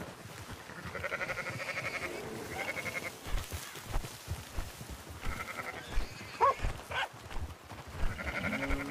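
Farm animals bleating: a quavering bleat repeated four times, the first and longest about a second in, with a short rising call between them.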